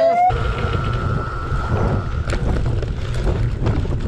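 A start siren's rising wail cuts off just after the start, and a fainter steady tone lingers for about two seconds. A loud, even rumble of wind on the microphone follows as the bike gets moving, with a few sharp clicks in it.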